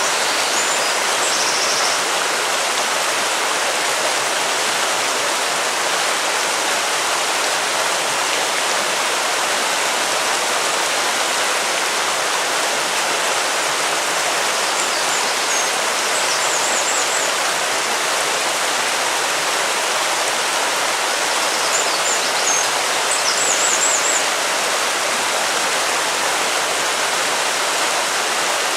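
River water flowing with a steady rushing sound. A few brief high chirps come through it three times: about a second in, near the middle, and a little past two-thirds of the way through.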